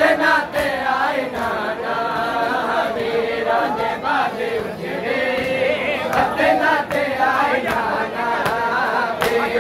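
A crowd of men chanting a noha, the Shia mourning lament, in unison, with regular hand slaps of chest-beating (matam) keeping the beat.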